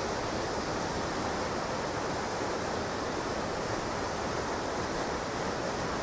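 River rapids: whitewater rushing steadily over and around boulders.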